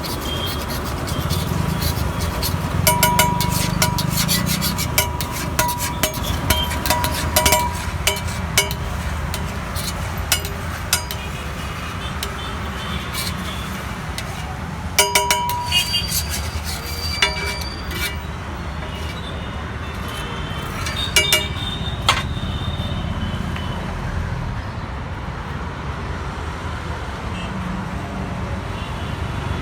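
Metal cooking utensils clinking and tapping on a street-stall griddle: irregular clusters of sharp, ringing metallic clinks. Underneath is a steady low rumble of road traffic.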